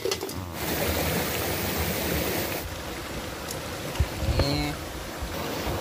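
Shallow river water rushing steadily over stones.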